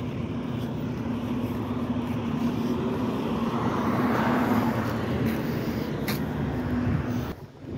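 Truck engine running with a steady low hum, swelling louder midway and dropping off sharply near the end.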